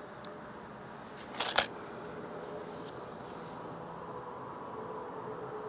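A couple of sharp metallic clacks about a second and a half in, from the Gamo Shadow Whisper break-barrel air rifle being cocked and its barrel closed. Underneath, insects drone steadily with a thin high tone.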